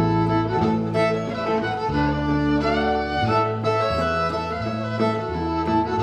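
Live acoustic string band: a fiddle bowing the melody, with a note that slides up in pitch about halfway through, over plucked upright double bass notes and guitar accompaniment.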